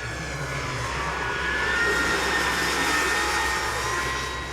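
Large radio-controlled model jet airliner flying past: a jet engine whine swells to its loudest two to three seconds in, then eases off, with its high tones dropping a little in pitch as it passes.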